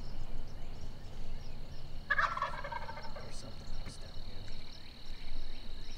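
A wild turkey tom gobbling once, a single rapid rattling gobble about two seconds in.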